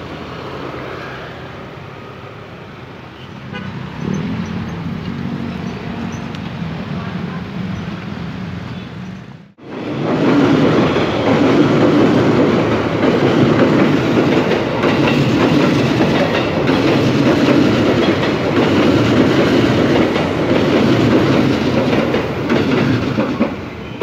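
A KRL JR 203 series electric commuter train runs past close by, its wheels clacking over the rails; this loud passing noise starts after a short break about nine and a half seconds in. Before that, a quieter steady vehicle-engine hum.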